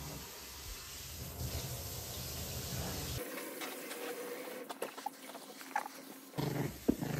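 Puppy playing with a rope toy on a wooden floor: scattered clicks and scuffles, then a short dog growl near the end.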